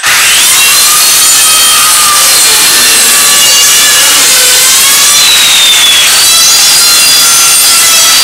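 Electric power saw starting with a rising whine, then running loud and steady as it cuts through wood. Its pitch dips now and then as the blade takes load.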